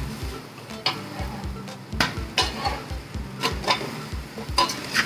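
Raw chicken pieces being stirred into sizzling fried masala in a steel pan with a steel spoon, the spoon scraping and clicking against the pan about seven times.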